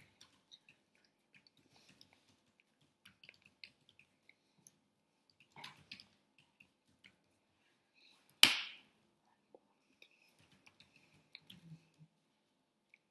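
Faint, scattered small clicks and ticks from a person signing without voice: hands, jewellery and mouth movements. A little past the middle comes one loud, sharp smack that dies away within about half a second.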